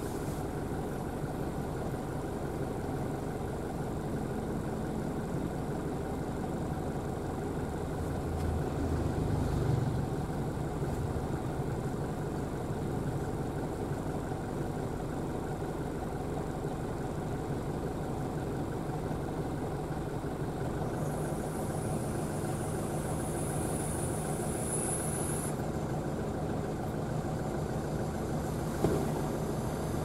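Steady car engine and road noise heard from inside the cabin of a moving or stopped car, swelling slightly about a third of the way in. A single sharp click sounds near the end.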